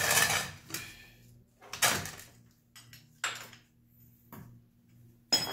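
Short bursts of scraping and clatter from a wrench at the engine's drain plug and a metal oil drain pan shifted on a concrete floor, four times, the last with a bright metallic clink. A faint steady hum runs underneath.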